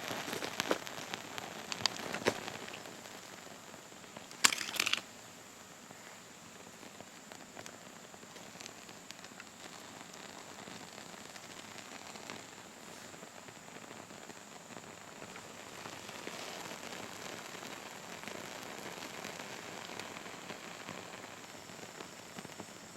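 Small fatwood fire crackling, with sharp pops and snaps in the first few seconds and a brief louder burst about four and a half seconds in, then a steady soft hiss of burning.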